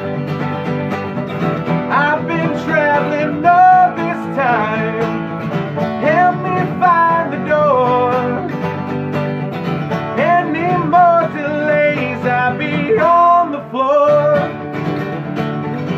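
Acoustic country band playing an instrumental break of a song in D major: a lead melody bending and sliding in pitch over steady chordal accompaniment.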